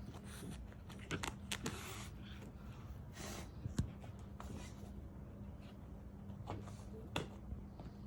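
French bulldog chewing and gnawing on a shoe: scattered soft clicks and scrapes, with a sharper knock about four seconds in and another near the end, over a steady low room hum.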